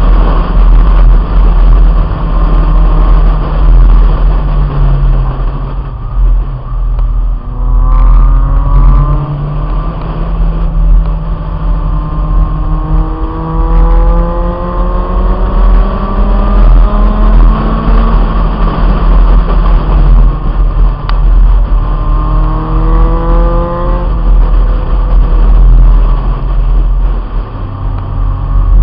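1997 Honda Integra's four-cylinder engine accelerating hard on track. Its pitch climbs through the revs and drops back several times at gear changes. Heavy wind rumble on the roof-mounted microphone runs under it.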